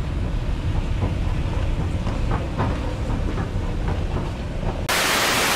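Escalator running: a steady low rumble with faint clicking from the moving steps. Near the end it gives way abruptly to a loud, steady hiss.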